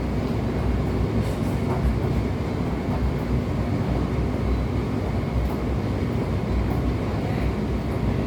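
Indesit condenser tumble dryer running in its cool-down stage, its drum turning with a steady low rumble and faint irregular knocks. This is the banging as the drum turns, which the owner puts down to a worn drum that needs replacing.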